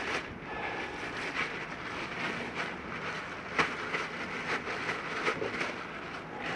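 Thin plastic bag crinkling and rustling as it is pulled off a greasy gloved hand, with several sharp crackles.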